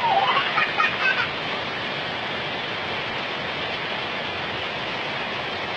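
Heavy rain falling steadily, with a brief high voice near the start.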